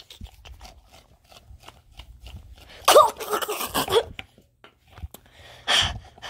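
Plastic toy grapes being handled and pretend-eaten by a hand puppet: soft clicks, crunches and scrapes of plastic, with two louder sounds about three seconds in and near the end.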